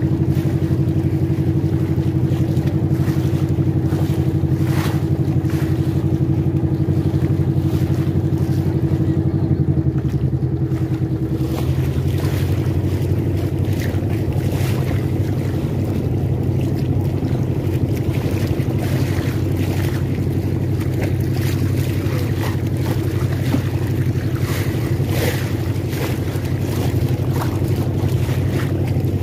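Motorboat engine running steadily with a low hum; its tone shifts slightly about eleven seconds in, then holds steady again.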